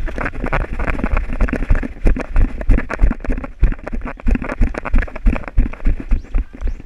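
Muffled thumps and rustling of an airsoft player moving quickly on foot, about three thuds a second, picked up close by a body-worn action camera along with clothing and gear knocking against it.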